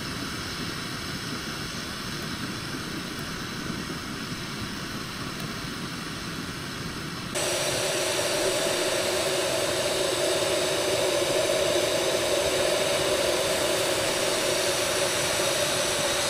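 Gas canister camping stove burning with a steady hiss while heating water. About seven seconds in it abruptly gets louder and a low hum joins the hiss.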